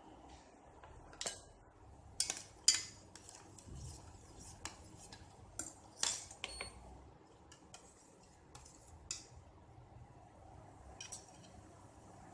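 Kitchen utensils clinking against dishes: about ten sharp, irregular clinks and taps, a few with a brief high ring, the loudest near the start.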